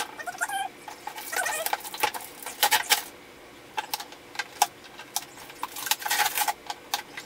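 Hands working at the fasteners on a cardboard model-horse box: repeated sharp clicks and scrapes with rustling of cardboard and packaging, and a few short squeaks about half a second in.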